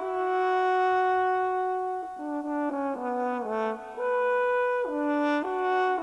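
Background music: a slow melody played on brass, a long held note, then a quicker run of changing notes in the middle, then held notes again.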